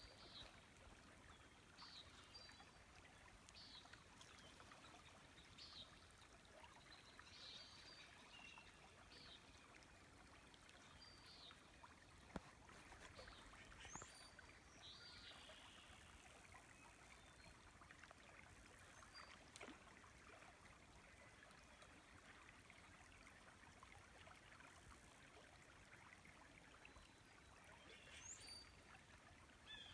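Faint flowing river with a bird calling in short chirps about every second through the first half, and again near the end. A couple of faint clicks in the middle.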